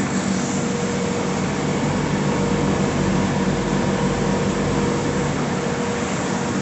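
Twin-head CO2 laser engraving machine and its CW-5200 industrial water chiller running: a steady whirring hum of fans and pumps with a faint constant tone.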